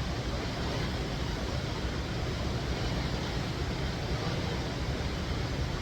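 Khone Phapheng Falls on the Mekong roaring: muddy water rushing and churning through rocky channels in a steady, loud rush.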